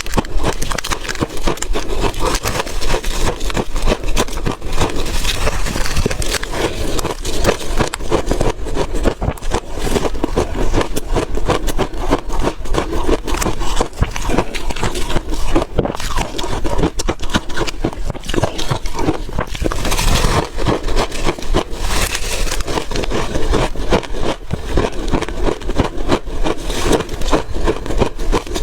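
Refrozen ice being bitten and chewed: a steady, unbroken run of crunches and crackles.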